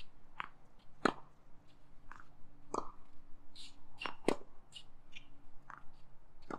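Tennis rally: a string of sharp pops as the ball is struck by racket strings and bounces on the hard court, spaced irregularly about a second apart, the loudest about a second in and just after four seconds. A faint steady hum runs underneath.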